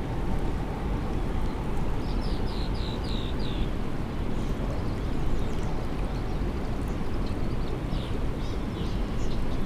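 Steady rush of flowing river water. A bird calls a quick run of about six short, falling chirps about two seconds in, with fainter chirps again near the end.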